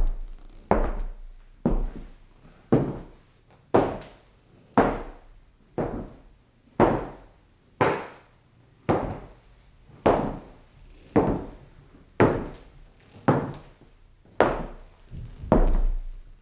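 Slow footsteps on a wooden floor, heard at a distance: one step about every second, each a dull thud with a short echoing tail.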